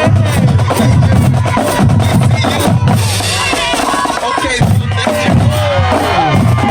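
Marching drumline playing: snare drums and bass drums in a fast, steady rhythm, with people's voices calling out over it.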